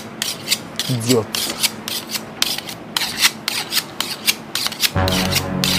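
Two kitchen knives scraped blade against blade in quick repeated strokes, about three a second. A low steady drone joins near the end.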